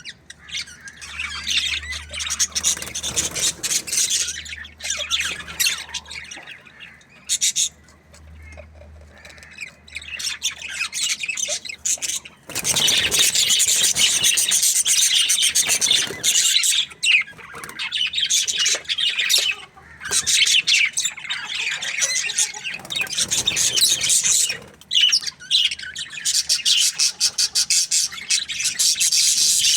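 A flock of budgerigars chirping and squawking together in dense, high-pitched chatter. It comes in bouts of several seconds separated by brief lulls.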